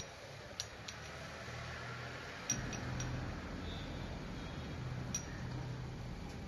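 Light metallic clinks of hand tools against engine parts, a handful of sharp ticks spread out over a low steady hum, while the camshaft sprocket of a Fiat 1.3 Multijet engine is being taken off.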